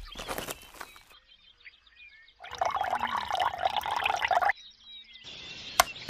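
Liquid pouring for about two seconds in the middle, starting and stopping abruptly, with faint bird chirps around it and one sharp click near the end.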